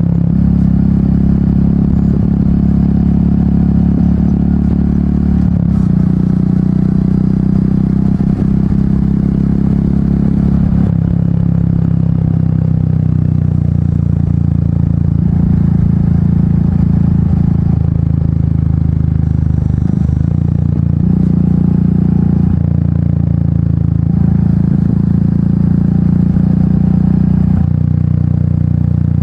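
Royal Enfield Meteor 350's single-cylinder engine running under way through an aftermarket exhaust, its note stepping up and down in pitch several times as the rider changes speed.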